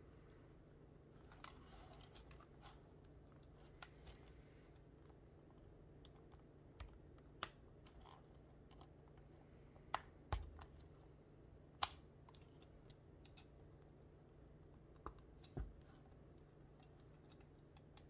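Plastic Technic-style building pieces clicking and snapping together as beams are pressed onto pins: a dozen or so sharp, quiet clicks spaced irregularly, a second or more apart, with a couple of dull knocks of the model being set down or pressed, over quiet room tone.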